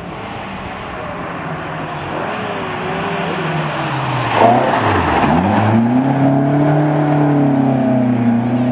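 Classic rally car engine at high revs approaching and passing close by, loudest about halfway through, its note dipping sharply and climbing again just after it passes, then held high as the car pulls away.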